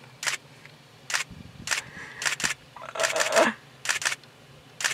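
Single-lens reflex camera shutter firing: a string of sharp clicks at uneven intervals, about eight or nine in all, with a quick run of shots about three seconds in.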